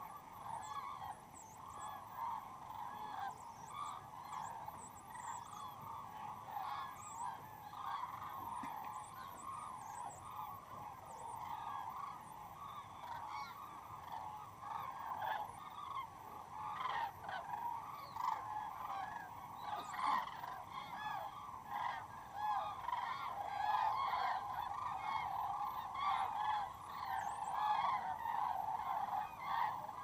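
A large flock of common cranes calling in flight, a dense chorus of many overlapping calls that grows louder in the second half.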